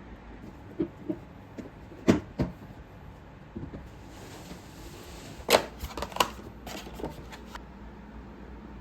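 Light clicks and knocks of small objects being handled, about a dozen, with the loudest pair about two seconds in and another cluster around five and a half to six seconds in.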